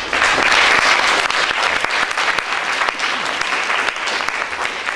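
Audience applauding, loudest in the first second or so and then slowly easing off.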